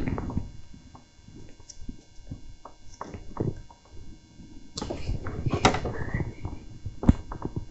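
Handling noise: irregular clicks and knocks with clothing rustling close to the microphone, loudest in a stretch of rustling and knocking a little after the middle, and one sharp click near the end.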